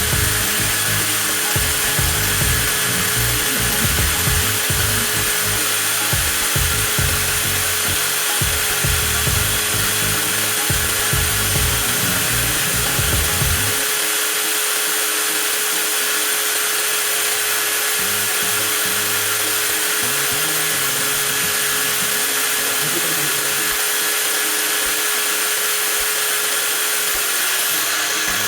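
A TOTAL 20V cordless angle grinder motor running continuously at no load, a steady whine with a constant pitch. An uneven low rumble underneath stops about halfway through.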